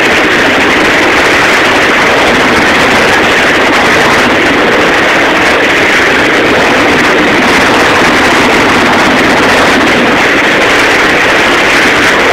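Churning white water of a boat's wake, a loud, steady rush with no breaks.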